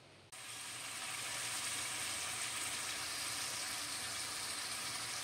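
Food cooking in pots on a stovetop, a steady sizzling and bubbling hiss that starts abruptly a moment in.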